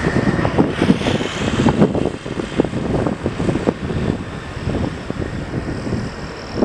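CFM56-7B jet engines of a Boeing 737-800 on final approach, a broad rumble, with uneven gusts of wind buffeting the microphone.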